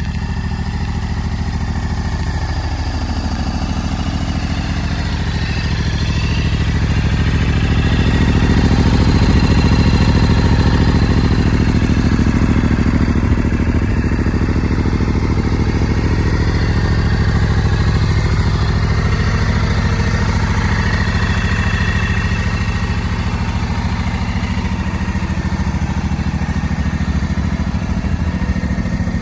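Ducati Multistrada 1260's Testastretta V-twin idling steadily through a Termignoni exhaust, swelling louder for a while about a third of the way in.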